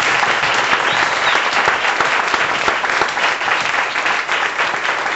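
Audience applauding steadily: dense clapping from many hands.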